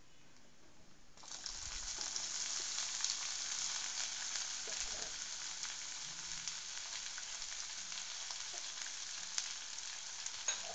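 Chopped onions dropped into hot oil with fried cashews: a loud sizzle starts suddenly about a second in and carries on steadily as they fry, with a sharp tap near the end.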